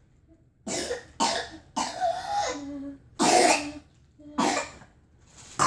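A child's whooping-cough (pertussis) coughing fit: about six harsh coughs in quick separate bursts, a fraction of a second to about half a second each, with short gaps between them.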